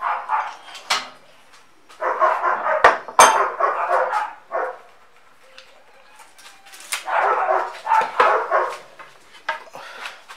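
A dog barking in three bouts of quick, repeated barks: a short one at the start, a longer one in the middle and another about seven seconds in. Two sharp knocks come during the middle bout.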